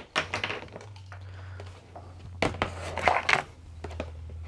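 Hard plastic parts being handled and set against a plastic container lid: a few clicks and clatters in short clusters, over a low steady hum.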